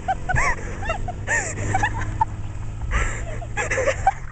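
Short, high-pitched squealing cries, each rising and falling, coming several times a second, over a steady low engine hum.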